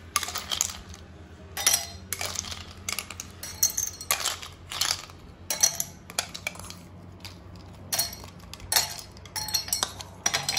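Ice cubes dropped into two drinking glasses, clinking against the glass, while a spoon scoops and taps the ice in a bowl. The clinks come in an irregular series throughout.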